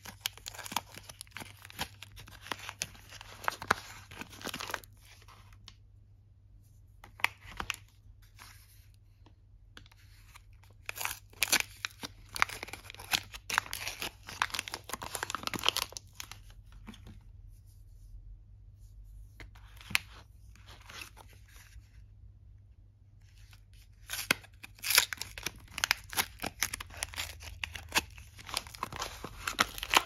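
Wrappers of bar soaps being torn open and peeled off by hand: crisp tearing and crinkling in several bursts of a few seconds each, with short pauses between.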